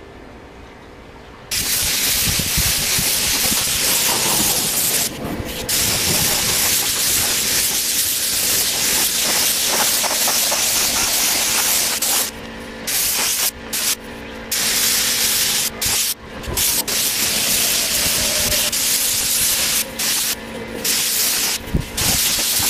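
Compressed-air paint spray gun hissing as it sprays clear coat. It starts about a second and a half in and sprays in long passes, broken by brief stops where the trigger is let off, more often in the second half.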